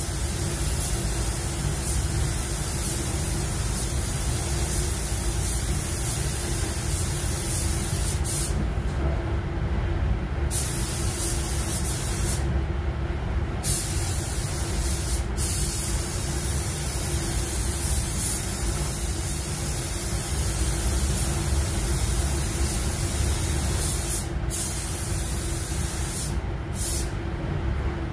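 Gravity-feed paint spray gun hissing as it sprays basecoat onto a bumper, the hiss cutting out briefly several times as the trigger is let off. A steady low rumble from the spray booth's ventilation runs underneath.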